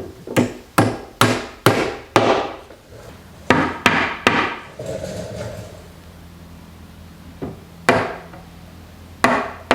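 Hammer blows on wood: a run of six quick strikes, three more after a short pause, then two single blows near the end.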